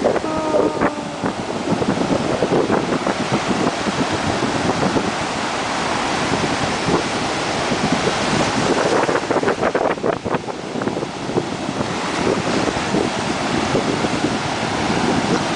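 Ocean surf breaking and washing through the shallows in a steady, rushing wash, with wind buffeting the microphone.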